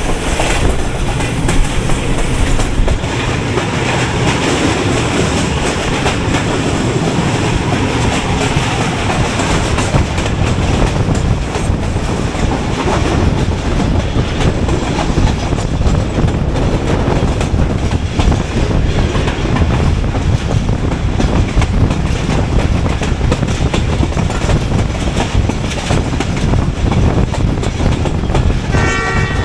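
Passenger train running at speed, heard from aboard: a steady rumble with wheels clacking over the rail joints. Just before the end, the ZCU-30 diesel-electric locomotive's horn starts to sound.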